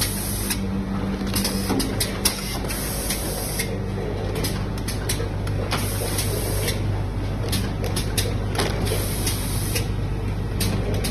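Automatic pre-made pouch filling and sealing machine running with a steady hum and a conveyor belt going. It gives repeated short hisses of compressed air, some lasting about a second, and scattered mechanical clicks as it works through its cycle.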